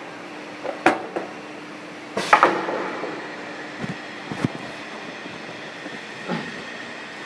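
A double-head aluminium cutting saw being switched on and readied: a steady machine hum with a few sharp mechanical clunks and clicks, the loudest about two seconds in. No saw cut is heard.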